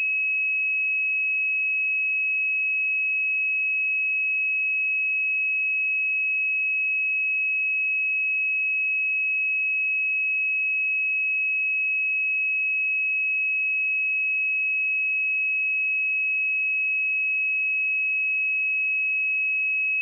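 A pure 2564 Hz sine-wave test tone, one steady high-pitched note held without change.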